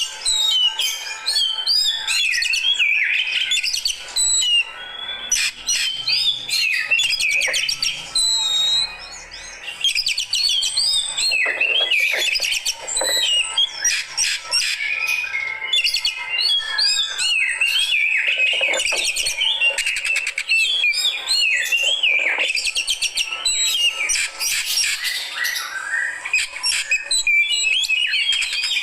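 Oriental magpie-robin (kacer) singing continuously: a rapid, varied run of whistles and chattering notes, with a brief lull about eight to ten seconds in.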